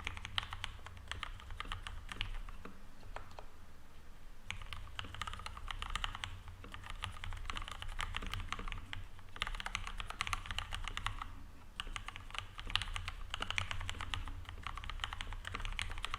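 Typing on a Leopold 750R mechanical keyboard with lubed linear Cherry MX Red switches, film-lined housings and lubed, wire-balanced stabilizers: fast, dense runs of keystrokes with a few short pauses.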